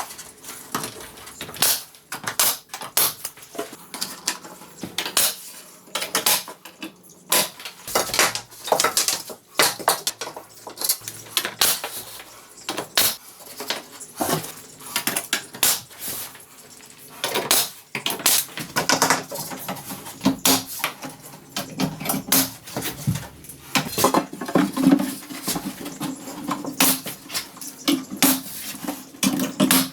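Irregular clattering and knocking of hard wooden and metal pieces during interior carpentry work, many sharp clicks and knocks in quick, uneven succession. A low steady hum joins in the second half.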